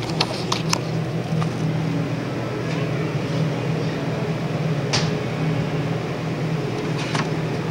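Steady low hum of a supermarket's refrigerated dairy cooler, with a few light clicks, about half a second in, near the middle and near the end.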